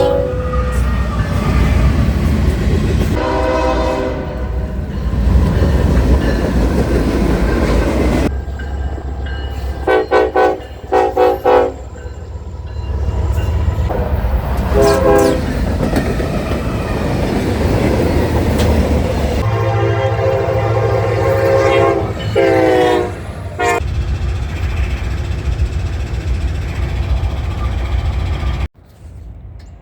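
Locomotive multi-chime air horn sounding a series of blasts, long ones and a quick run of short toots, over the steady low rumble of a moving train. The sound cuts off abruptly near the end.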